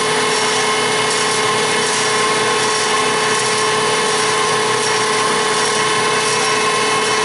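Marvel Model 81 vertical bandsaw running under its hydraulic drive with the blade turned up in speed: a steady machine hum with a held whine.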